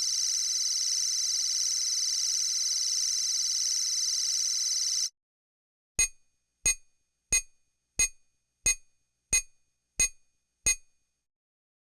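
Electronic beep sound effects: a long, high, buzzing electronic tone that cuts off after about five seconds, then, after a second's pause, eight short high beeps, about three every two seconds, each fading quickly.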